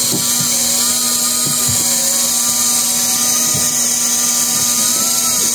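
Electric fishing reel motor whining as it winds in a fish on a bent rod, its pitch wavering up and down as the load changes, over a steady hiss and hum.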